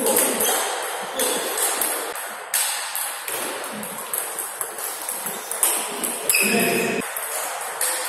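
A table tennis rally: the plastic ball clicks sharply off rackets and the table in quick, irregular succession. A short pitched sound comes in about six and a half seconds in.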